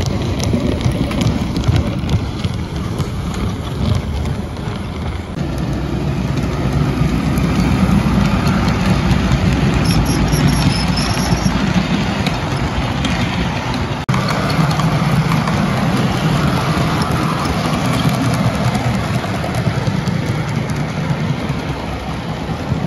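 Model train of bogie cement tank wagons running along layout track: a steady rumble of wheels and drive, with a sudden brief break about 14 seconds in.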